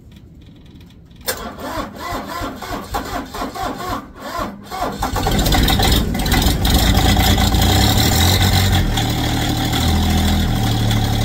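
Massey Ferguson GC1723's three-cylinder diesel engine cold-started after pulsed glow plugs: the starter cranks it in uneven strokes for about three and a half seconds, then it catches about five seconds in and runs steadily.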